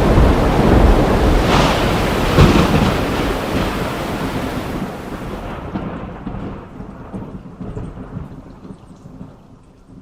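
Thunder during heavy rain: two sharp cracks about one and a half and two and a half seconds in, over a deep rumble that gradually dies away, leaving only a faint low rumble near the end.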